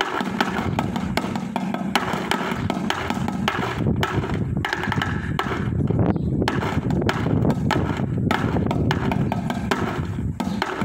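Bucket drumming: sticks beating fast, continuous rhythms on a set of paint cans, with dense rapid strokes throughout.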